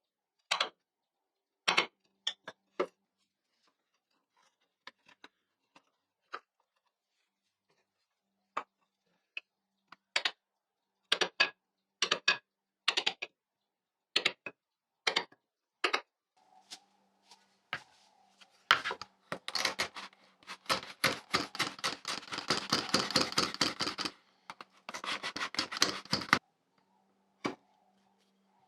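Hand tools cutting into hardwood while stop rabbets are made. First come sharp, separate taps and knocks, then from about two-thirds of the way in a quick, dense run of rasping strokes lasting about six seconds, over a faint steady hum.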